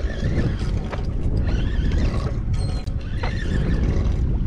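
Steady low rumble of wind and sea around a boat offshore, with a faint click about a second in and a short faint squeak a little after three seconds.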